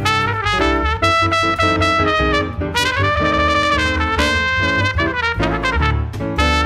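Jazz trumpet playing the lead melody over upright bass and piano accompaniment.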